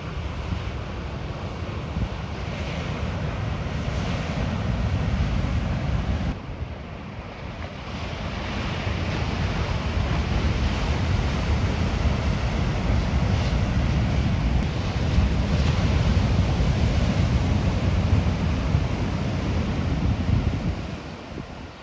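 Wind buffeting the microphone over the steady wash of ocean surf. The gusts ease off briefly about six seconds in and again near the end.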